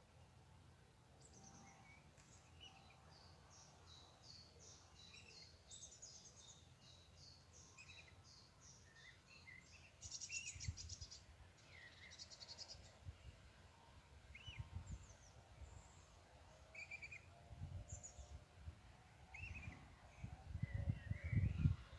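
Small birds chirping and singing in short phrases and quick trills around a lake, with a faint background hiss. Irregular low rumbles come and go and are loudest near the end.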